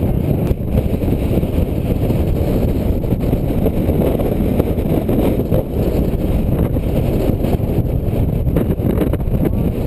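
Strong wind buffeting the microphone: a loud, steady, low rumble with no pauses.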